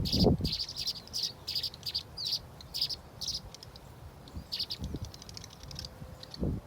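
Small birds chirping in quick, short, high calls, several a second, thinning out after about four seconds. A couple of low thumps come at the very start and again near the end.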